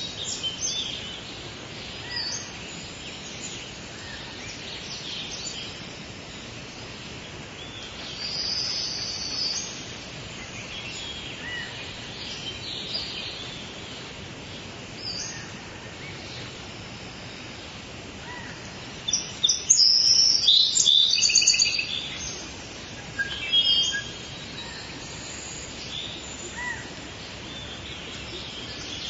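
Rainforest ambience: a steady background hiss with birds chirping and calling here and there, and a loud flurry of rapid, high bird calls about two-thirds of the way through.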